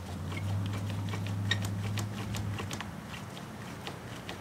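Faint, irregular small clicks from a Yamaha XS400's front brake lever and master cylinder being pumped to force the caliper piston out of its bore, with a steady low hum for the first two and a half seconds.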